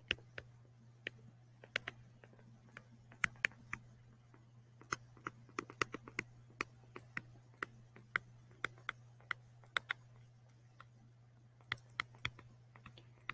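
Irregular light clicks and taps of a stylus on a tablet screen while handwriting words, over a faint steady low hum.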